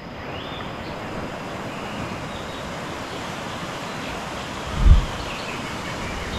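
Steady rushing noise with wind buffeting the microphone, one loud low gust thump about five seconds in.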